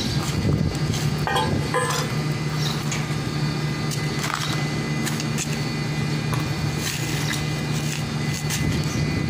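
A machine's engine running steadily with a low, even hum, with a few light knocks and clanks of metal over it.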